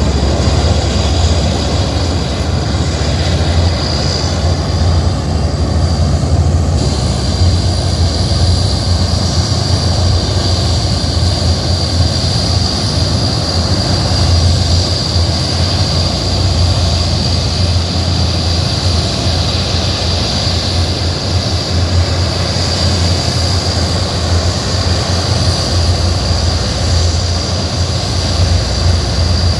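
Antonov An-12's four Ivchenko AI-20 turboprop engines running as the aircraft taxis and lines up: a steady low propeller drone under a high turbine whine that grows stronger about seven seconds in.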